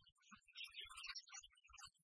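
Near silence: only faint, broken fragments of sound.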